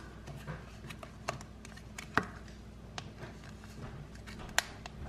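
Thin plastic inner flap of a pimento cheese tub being pried up around the rim with fingertips: scattered sharp plastic clicks and snaps, roughly one a second, the loudest about two seconds in and another strong one near the end.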